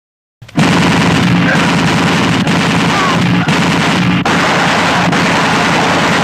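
Action-movie gunfire sound effect: sustained automatic fire in a dense, unbroken fusillade that starts abruptly about half a second in.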